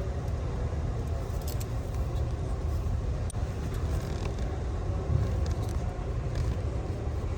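Steady low rumble with faint light ticks over it.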